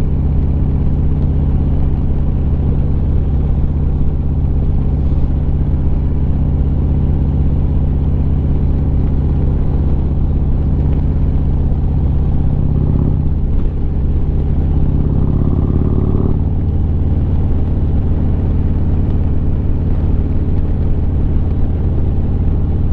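Harley-Davidson Street Glide's V-twin engine running steadily under way. About two thirds of the way through its note rises for a few seconds, then drops back abruptly, as when it accelerates and shifts up a gear.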